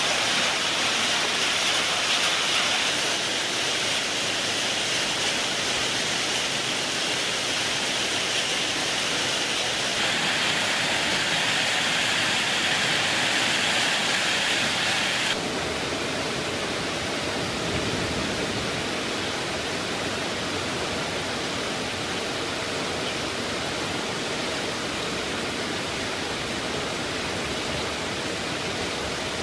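Recorded heavy rain, a steady hiss that changes abruptly at edits about 3, 10 and 15 seconds in. After the last edit it is quieter and lower.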